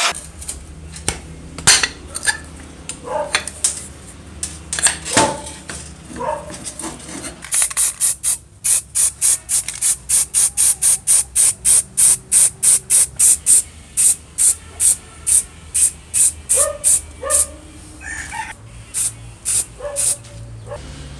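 Aerosol spray-paint can hissing in a rapid run of short, even bursts, about three a second, as paint goes onto the saw's metal parts. Scattered clicks and taps come before it.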